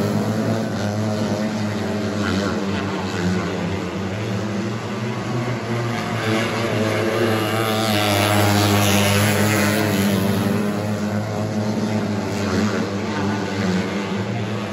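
Several 600 mini sprint race cars running at high revs together as they race around the dirt oval, their engine notes wavering up and down as they pass.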